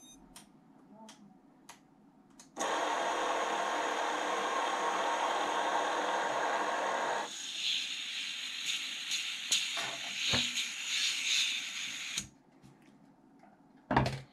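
Brushless motors of a 5-inch FPV quad spinning with no propellers fitted, a steady buzzing hiss that starts suddenly, turns thinner and higher about halfway through, and cuts off shortly before the end. A sharp knock follows near the end.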